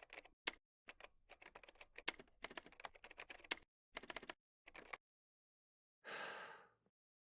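Faint, quick, irregular clicking like keys being typed, in runs for about five seconds, followed near the end by a short soft hiss.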